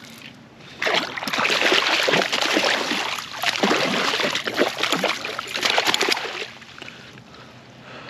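A hooked pike thrashing at the water's surface beside a kayak: a run of irregular, heavy splashes starting about a second in and dying down near the end.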